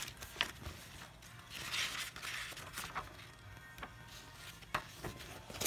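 Pages of a thin paperback book being riffled and turned by hand: paper rustling, with a longer rustle about two seconds in and a few sharp flaps and taps.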